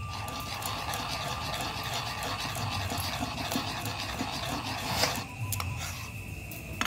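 Wire whisk beating cake batter in a steel bowl, a quick rhythmic clicking and scraping of the wires against the metal, easing off about five seconds in.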